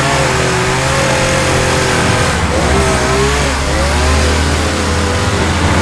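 Chainsaw running under load, its pitch wavering up and down as it cuts, over a second engine's steady low drone.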